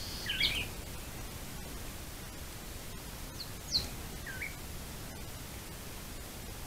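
A few short, thin bird chirps, one about half a second in and two more a little past the middle, over the steady hiss of a trail camera's microphone.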